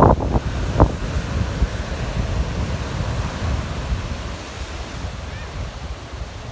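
Ocean surf breaking and washing over a rocky, sandy shore. Wind buffets the microphone in a heavy low rumble during the first second, then the sound settles into a steady wash that slowly grows quieter.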